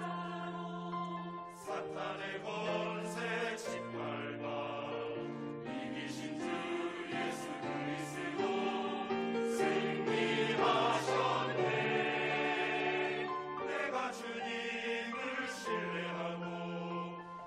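A mixed choir of men and women sings a hymn anthem in Korean, with grand piano accompaniment, holding sustained notes.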